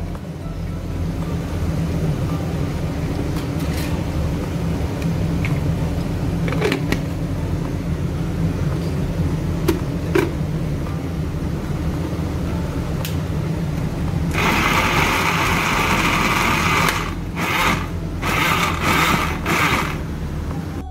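Electric countertop blender motor blending fried onions into yogurt: it starts about two-thirds of the way through, runs for a couple of seconds, stops, then runs again in two short pulses. Before it, a few light clicks and knocks of the plastic jar being handled over a steady low hum.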